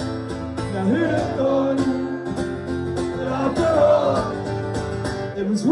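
Live acoustic guitar strummed in a steady rhythm, ringing chords with sung lines over it.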